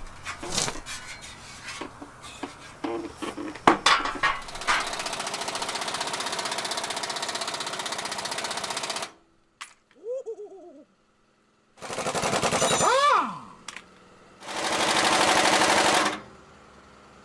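Metal parts clanking, then a cordless impact wrench hammering on a bolt: one long run of about four seconds, then two shorter bursts with its motor whining as it spins up and down. The wrench's battery is running flat.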